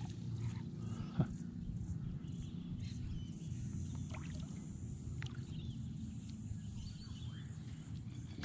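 Water sounds beside a kayak as a hooked Australian bass is played toward the landing net: a low steady rumble with a sharp knock about a second in and a few faint splashes.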